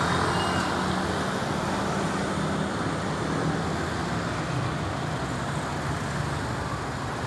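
Steady road traffic noise: vehicle engines running with a low hum and tyre noise, slightly louder at the start. No siren is heard.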